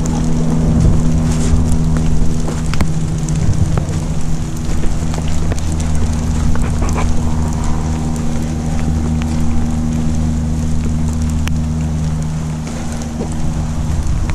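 An engine running steadily with a low, even hum, with scattered light ticks and taps over it.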